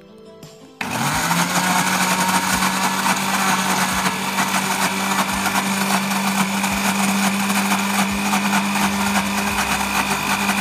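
Philips countertop blender switching on about a second in and running steadily, chopping tongkol fish with ice water into a paste for fish balls.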